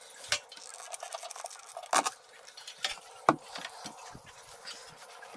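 Irregular light taps, clicks and rustling of hands at work, pressing a ceiling molding against the wall and handling a hot glue gun. A few sharper knocks stand out: one just after the start, one about two seconds in and one a little past three seconds.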